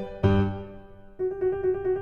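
Background music on piano or electric piano: a chord rings and fades, then about a second in a quicker passage of repeated notes begins.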